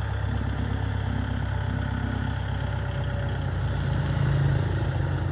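Kubota L4508DI tractor's diesel engine running steadily under light throttle as the tractor climbs loading ramps onto a truck, growing a little louder about four seconds in.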